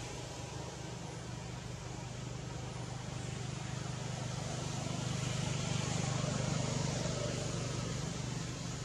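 A steady low motor hum under a broad hiss, growing louder about halfway through and easing off near the end.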